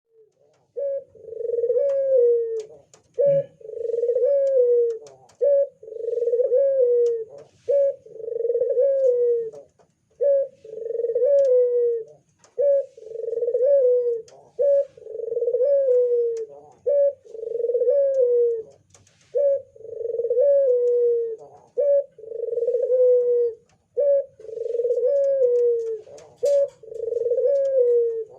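Ringneck dove (burung puter) cooing over and over: a long, low coo that falls at the end, repeated about every two seconds.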